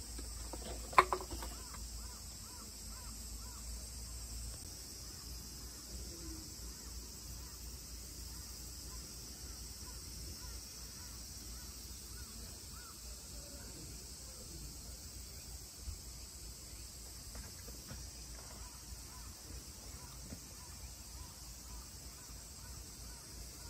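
Crows cawing in a long series of short repeated calls, over a steady high insect drone. A single sharp knock sounds about a second in.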